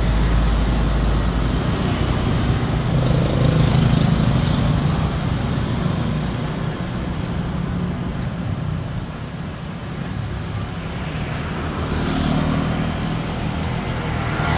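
City street traffic, mostly motor scooters and motorbikes running past, with a low rumble that is strongest in the first couple of seconds.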